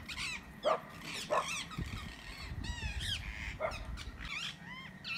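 Small birds chirping and twittering in a tree, many quick high calls overlapping, with three short, louder harsh calls about a second in, half a second later, and near the end.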